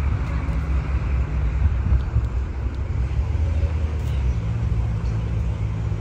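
A motor vehicle's engine running at low revs: a steady low hum that shifts slightly in pitch about four seconds in.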